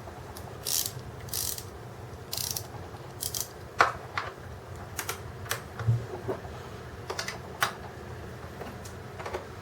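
A nut being threaded onto a bench-vise mounting bolt with an open-end wrench. There are short metallic scrapes early on, then sharp metal clicks of the wrench on the nut at irregular intervals.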